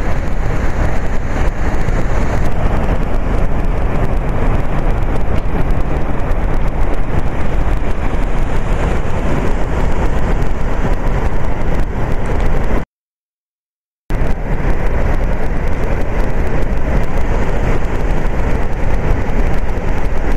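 Niagara's Horseshoe Falls pouring over its crest, a loud, steady, dense rushing noise with deep rumble. It cuts out completely for about a second past the middle, then comes back unchanged.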